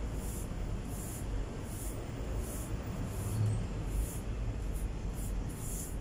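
Wet cement being pressed and smoothed into the joint between a concrete wall and floor with a small trowel and fingers: short scraping strokes about one and a half times a second, over a steady low rumble.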